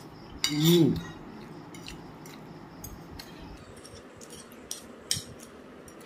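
Forks clicking and scraping on a plate while eating, with a short breathy vocal sound about half a second in whose pitch falls, typical of a groan at the burn of very spicy noodles.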